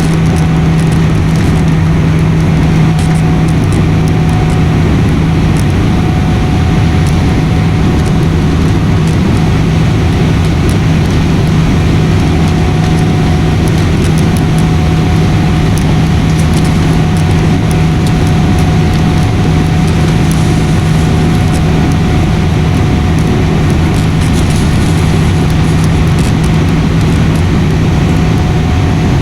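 Airliner cabin noise in flight: a loud, steady rush of engines and airflow with a constant low hum, and scattered light clicks and rattles.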